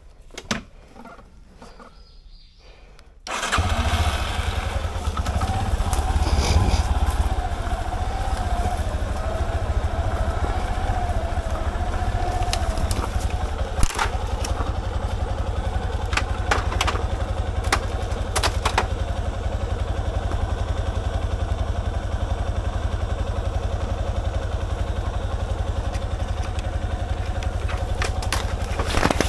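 Yamaha Serow's single-cylinder four-stroke engine starts up about three seconds in and then runs steadily at low revs. A few sharp clicks come through over the engine.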